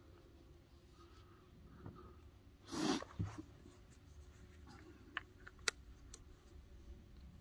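Handling noise from a scoped stainless .44 revolver being picked up and readied: a short rustle about three seconds in, then a few light, sharp clicks.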